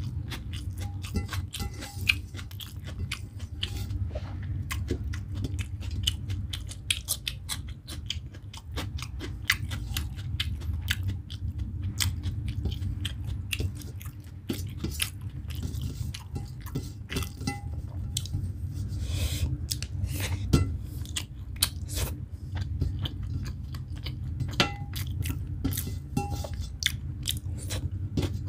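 A person chewing mouthfuls of rice with egg curry: wet chewing with many short mouth clicks and smacks, over a steady low hum.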